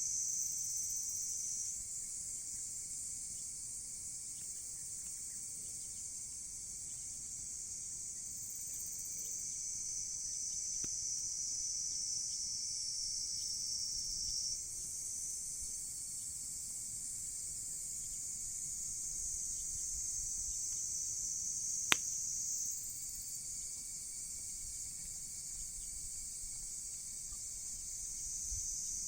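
A steady chorus of insects shrilling high, swelling and easing every several seconds. One sharp pop comes from the burning wood about three quarters of the way through.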